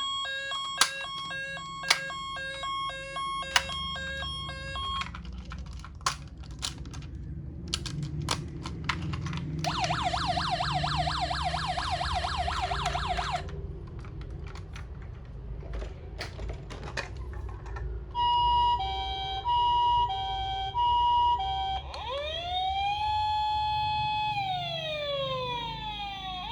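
Toy ambulance minicar's electronic siren playing through its small speaker and cycling through modes. It starts with a repeating beep pattern broken by sharp clicks, then gives a rapid warbling yelp, then a two-note hi-lo ambulance tone, then a wail that rises and falls near the end. A low rumble runs underneath.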